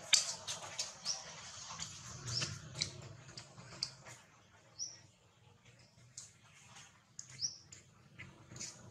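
Many short, high-pitched animal chirps, several of them falling quickly in pitch, with sharp little clicks among them, loudest in the first few seconds and sparser after the middle.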